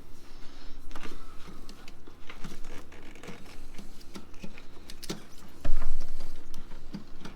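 Irregular light metallic clicks and taps of the positive battery cable clamp being fitted and tightened onto the battery terminal, with a loud low thump about five and a half seconds in.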